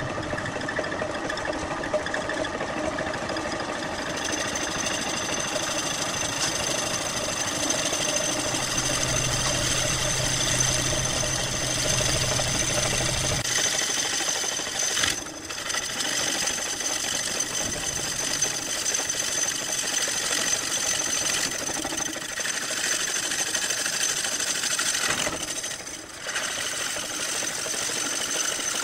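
Wood lathe spinning a segmented wooden vase while a long hollowing bar cuts inside it through the neck: a steady motor whine with the scraping of the cutter and wood chips spraying out. The sound drops briefly twice as the cut eases off.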